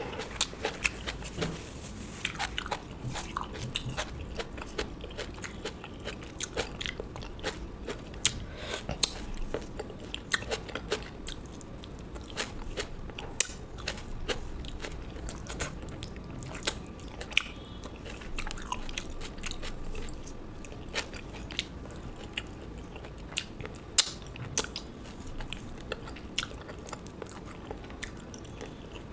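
Close-miked eating: a person chewing and biting food, with many irregular sharp crunches and mouth clicks.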